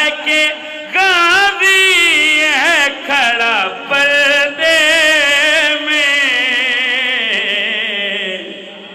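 A man's solo voice singing a long, ornamented phrase of an Urdu devotional nazm into a microphone, unaccompanied, the pitch wavering with heavy vibrato and broken by short breaths. The phrase trails off near the end.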